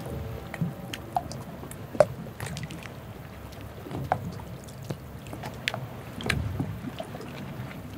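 Harbour water lapping and sloshing over a low rumble, with scattered sharp drip-like plops, the loudest about two seconds in. The last of a steady ship's horn note dies away in the first second.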